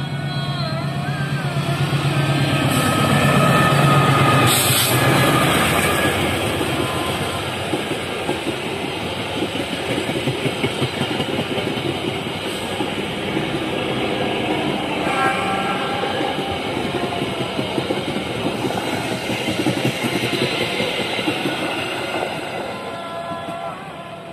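KAI CC 206 diesel-electric locomotive passing close at speed: its engine hum builds to a peak and drops in pitch as it goes by about four seconds in. Then a long train of passenger coaches rolls past, the wheels clattering over the rails, before the sound fades near the end.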